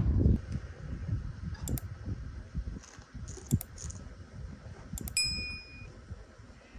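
Light clinks of kitchenware, with one clear ringing clink about five seconds in that holds its tone for most of a second, over low handling and rustling noise.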